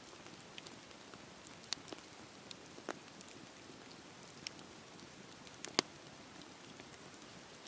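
Campfire crackling: a steady soft hiss with scattered sharp pops of burning wood, a few seconds apart, the loudest about six seconds in.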